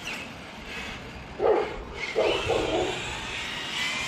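A dog barks three times: once about a second and a half in, then twice in quick succession around two seconds in.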